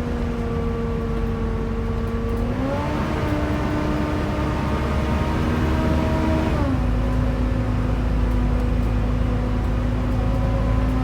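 Volvo B7TL double-decker bus heard from inside as a passenger: a low engine rumble with a steady whine, the 'hoover' sound. The whine steps up in pitch about two and a half seconds in, holds, and drops back down just before seven seconds, while the rumble grows heavier.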